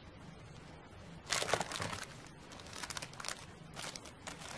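Clear plastic bag crinkling as it is handled, in irregular rustling bursts that start about a second in, with scattered small crackles after.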